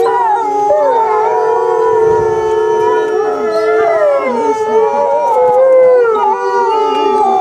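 A pack of timber wolves howling in chorus: several voices overlap, each holding long notes that slide up and down in pitch.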